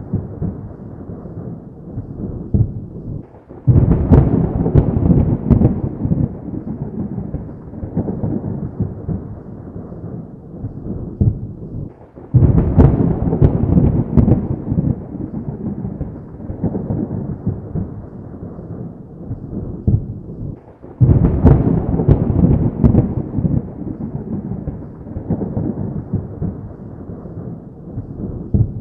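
Thunder rumbling continuously. Three loud claps break in suddenly, about four seconds in, near the middle and about two-thirds through, and each one rolls on and fades over several seconds.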